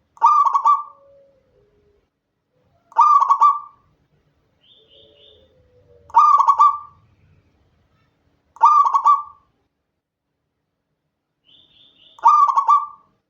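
Zebra dove (perkutut) singing its cooing song: five separate coo phrases, each about a second long, repeated about every three seconds. Faint short high chirps come twice between the phrases.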